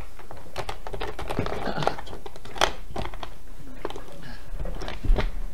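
Paper rustling and crinkling as letters and envelopes are handled and opened, with scattered clicks and a few sharper knocks; the loudest, a dull knock, comes about five seconds in. A steady low hum runs underneath.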